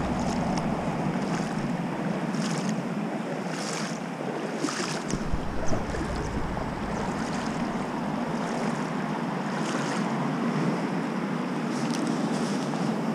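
Steady rush of flowing river water, with wind buffeting the microphone and a gust about five seconds in. Short hisses come about once a second.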